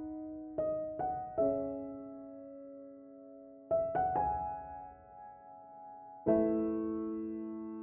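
Soft solo piano background music: slow groups of struck notes and chords, each left to ring and fade.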